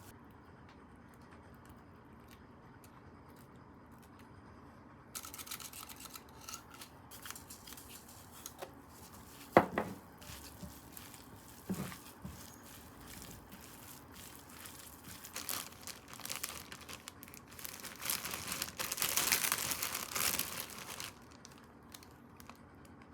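Packaging being crinkled and torn open by hand, starting about five seconds in and growing densest near the end, with two sharp knocks in the middle.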